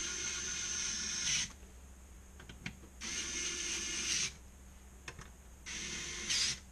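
Electric screwdriver whirring in three short runs of a second or two each, driving the top screws of a Mahlkönig K30 espresso grinder snug.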